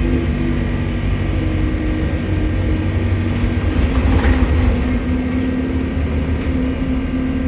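Bus engine running while the bus is on the move, heard from inside: a steady low drone with engine tones that shift in pitch about halfway through. The bus is said to have a leaking turbo.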